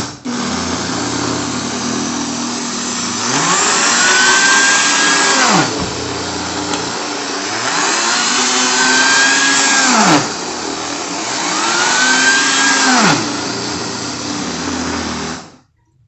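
Electric countertop blender running, grinding roasted chestnuts with sugar and flour into a dry flour. Three times, while the blender is tipped over to turn the mix, the motor's whine rises to a high pitch, holds and then drops sharply. The motor stops just before the end.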